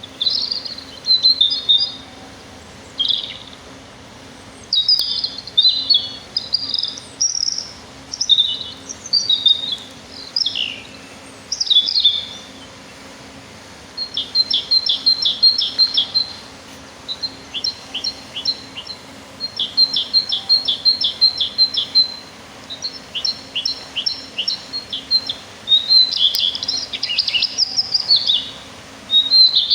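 Small songbirds singing: a run of short, high chirping phrases with brief pauses. In the second half these become fast repeated trills of several notes each, about two seconds long.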